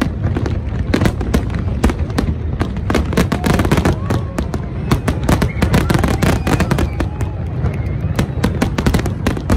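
Fireworks display: a rapid, dense barrage of aerial shell bursts and crackling, with bangs coming several times a second over a continuous low rumble.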